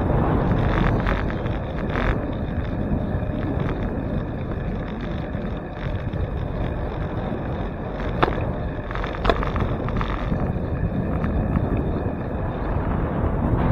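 Wind buffeting the microphone of a bicycle's handlebar camera while riding, over steady road and tyre rumble, with two sharp clicks about eight and nine seconds in.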